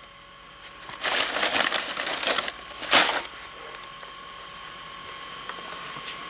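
Rustling and crinkling of papers and objects being handled during a search, lasting about a second and a half, then one sharp clack about three seconds in.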